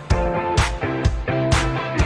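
Background music: a rock-style track with guitar and a steady drum beat, about two beats a second.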